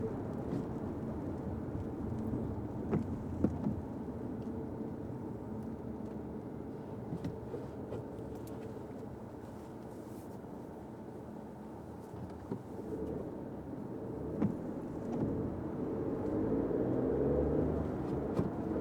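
A Fiat 500X driving on wet roads: a steady rumble of tyres and engine that eases off a little midway and builds again near the end, with a few sharp knocks.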